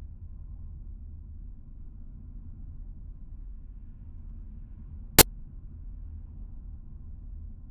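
Steady low rumble of a car driving along a road, with one sharp click about five seconds in.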